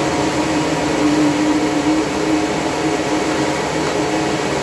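Cooling fans of running Antminer ASIC mining rigs: a loud, steady rush of air with a steady hum underneath.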